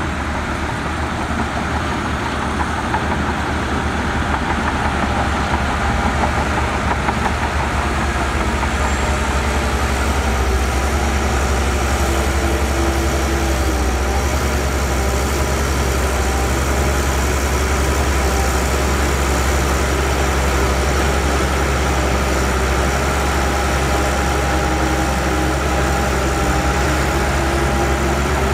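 Heavy diesel earthmoving machinery running steadily, a deep continuous engine drone that builds slightly over the first few seconds and then holds.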